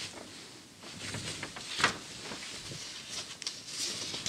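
Paper pages of a vintage 1940 magazine rustling as a page is turned over, a soft swishing with a sharper crackle just before two seconds in.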